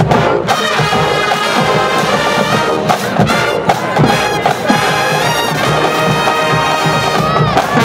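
College marching band playing loudly: the brass holds chords with a few quick upward swoops, over steady drums.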